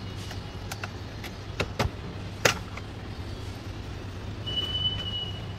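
A run of sharp plastic clicks and snaps as Mazda CX-5 dashboard trim clips are worked loose, the loudest about two and a half seconds in, over a steady low hum. Near the end comes a brief high, steady tone.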